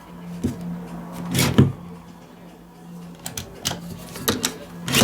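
Clicks and knocks of plastic and metal parts as a Fiolent MFZ 1100E plunge router is handled, not running, with the strongest knock about a second and a half in and several lighter clicks near the end. A steady low hum runs underneath.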